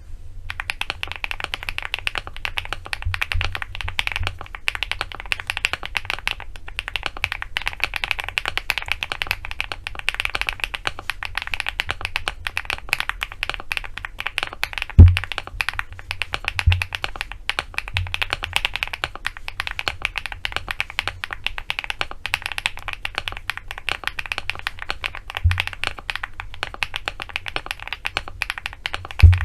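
Fast, continuous typing on a stock LEOBOG Hi8 mechanical keyboard with HC Studio Xinhai switches and Cherry-profile PBT double-shot keycaps. The keystrokes come in a dense stream, with a few deeper, louder thumps, the strongest about 15 seconds in.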